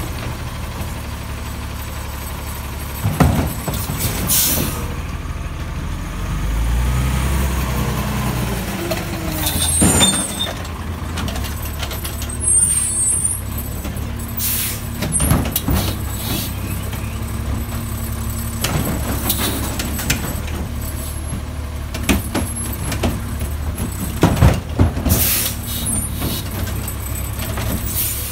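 Automated side-loader garbage truck's diesel engine running steadily, speeding up for a few seconds about a quarter of the way in as the truck's hydraulic arm works the carts. A few sharp clanks and several short air-brake hisses cut through it.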